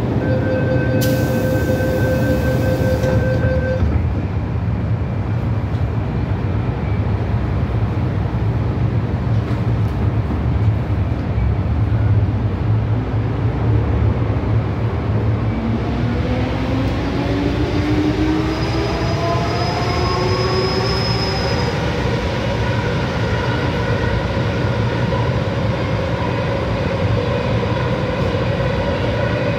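Interior of an MTR M-Train subway car: a steady warning tone and a hiss as the doors close during the first few seconds, over the car's steady low rumble. From about halfway through, the traction motors give a whine that rises in pitch as the train pulls away and then levels off.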